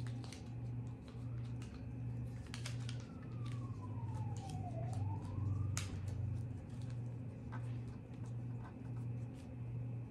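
Origami paper crinkling and clicking in small bursts as it is folded by hand, over a low hum that pulses about one and a half times a second. In the middle a single tone slides down in pitch for about two seconds, climbs back up and stops abruptly.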